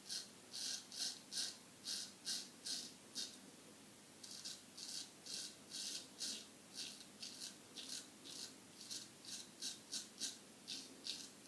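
Straight razor scraping through stubble in short, quick strokes, about three a second, with a brief pause about four seconds in.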